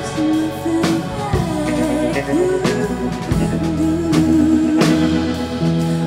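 Live indie rock band playing: a woman singing over electric guitar, bass and drum kit, with drum hits marking the beat.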